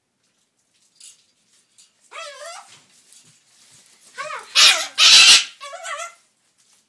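White cockatoo calling: two wavering, warbling calls, then a loud harsh screech about four and a half seconds in while it flaps its wings, then another short warble.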